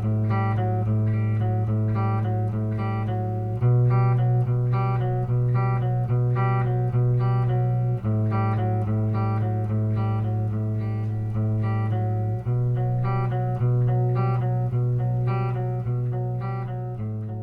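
Instrumental music: a plucked guitar picking a repeating pattern of notes over a low bass note that changes every four seconds or so, fading out near the end.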